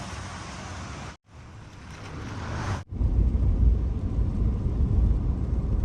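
Ford F-150 pickup on the move, in three short edited clips: steady road and wind noise, then noise that swells, then about three seconds in a loud low rumble of engine and tyres that runs until a cut.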